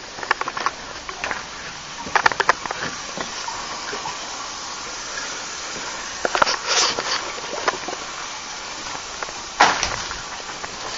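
Footsteps crunching and rustling over debris in short irregular clusters, over a steady hiss.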